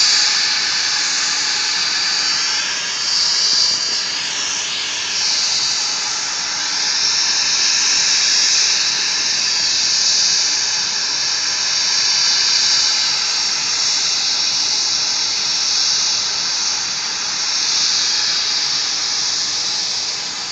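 SkyWest CRJ200 regional jet's two rear-mounted GE CF34 turbofans running at taxi power as the jet rolls past: a steady high-pitched turbine whine over a hiss, the pitch sweeping up and down a few seconds in.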